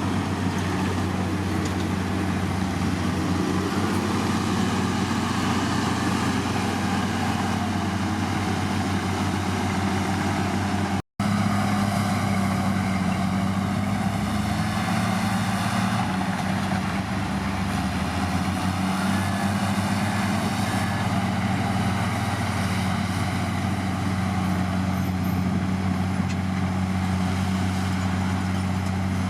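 Heavy diesel engine of earthmoving machinery running steadily under load, with a deep, even hum.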